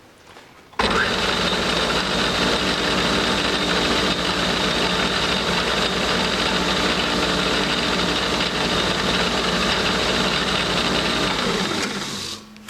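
Craftsman 618 metal lathe switched on about a second in, running steadily in back gear at its slowest speed, driven by a 3/4 horsepower electric motor through belts. Switched off near the end and spinning down.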